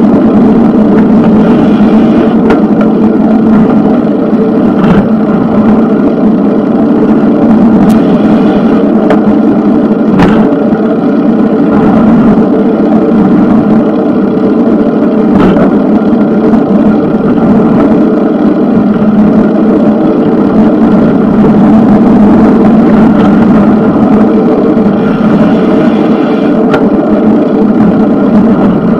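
Steady, loud rolling noise of a bicycle ride, with a few sharp clicks and knocks scattered through it.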